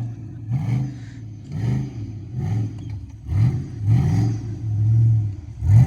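Blazer's engine revving in repeated short rising bursts, about one a second, while off-road wheeling.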